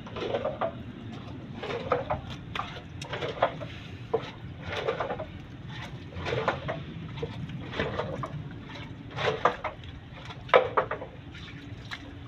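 A basket of wet, freshly caught fish being turned over and shifted by hand: irregular slippery slaps and squelches every second or so. A steady low hum runs underneath.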